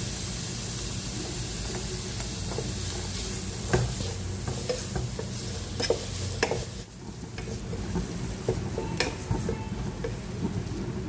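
Chopped vegetables sizzling in hot oil in a pan while being stirred, with a utensil clicking and scraping against the pan now and then. The sizzle quietens about two-thirds of the way through.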